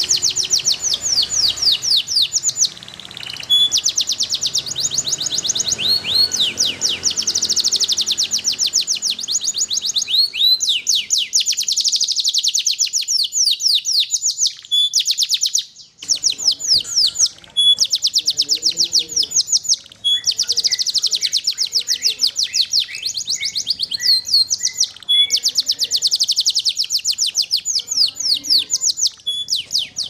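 Champion contest canary singing a long song of rapid trills: runs of fast, high, downward-sweeping notes in phrases of a few seconds, with short breaks between them.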